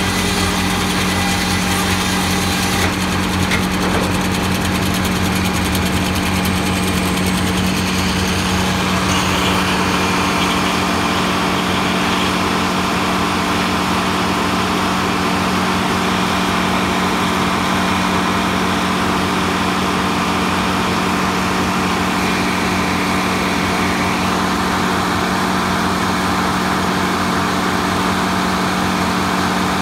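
Circular sawmill running, its large inserted-tooth head saw and drive machinery making a loud, steady mechanical drone with a low hum. About nine seconds in, a higher whir joins and holds.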